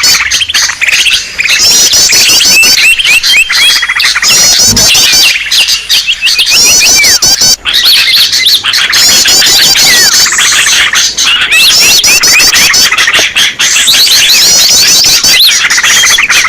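Loud, dense chorus of many small birds chirping and calling at once, with short rapid high trills repeating over and over. It is a bird-lure (pikat) recording used to draw small birds in.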